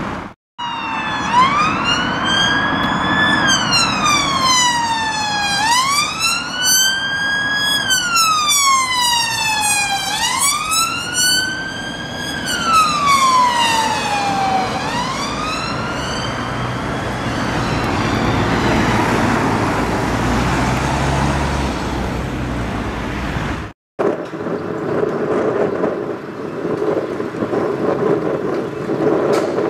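Northumbria Police Peugeot 308 patrol car's siren on a slow wail, rising and falling three times about every four and a half seconds, then fading as the car goes past and leaving road and engine noise. About 24 seconds in, a cut to a steady rumble.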